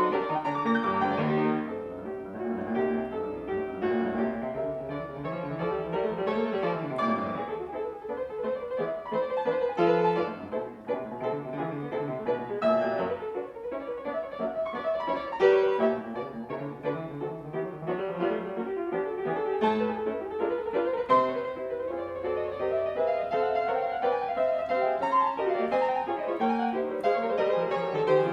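A 1975 Yamaha G3 grand piano playing a flowing classical-style piece of chords and runs. The piano has been freshly restrung and fitted with new German hammer heads.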